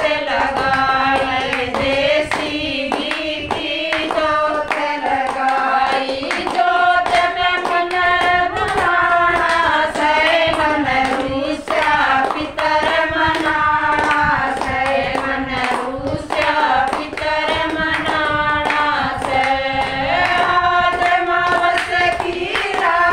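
Women singing a Hindu devotional bhajan together, with steady hand-clapping keeping the beat.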